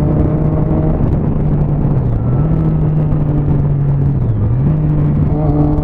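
Motorcycle engine running at steady revs while riding, under a rush of wind noise. The engine note dips briefly twice, about two and four seconds in, and comes straight back up.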